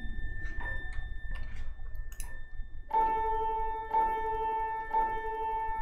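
Background music: a single pitched, piano-like note repeats about once a second, starting about three seconds in. Before it there are only a few faint clicks.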